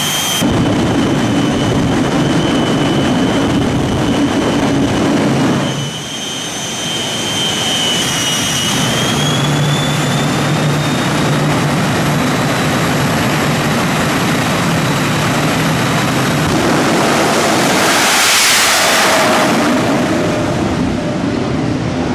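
The two jet engines of Hot Streak II, a jet-powered 1957 Chevy truck, run with a steady high turbine whine over a heavy rumble. About nine seconds in the whine rises in pitch. Near the end a much louder full-power blast comes as the truck launches, then eases off as it goes away.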